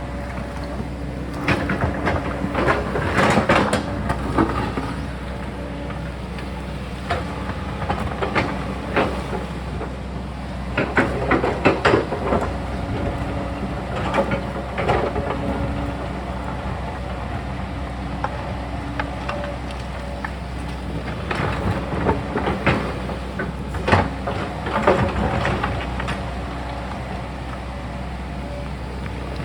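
Sany mini excavator's diesel engine running steadily under load, with its bucket scraping and knocking against rock. Several bursts of clattering knocks come every few seconds as it works the rocks.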